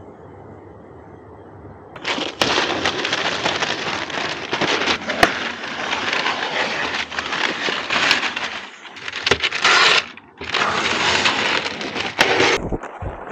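Rain starting to fall, the drops crackling loudly on the camera's microphone. It starts about two seconds in and breaks off briefly a couple of times near the end.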